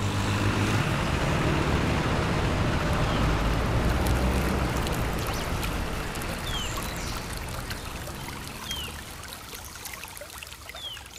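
Rushing, water-like noise of a flowing stream that slowly fades, with a bird repeating a short falling chirp about every two seconds.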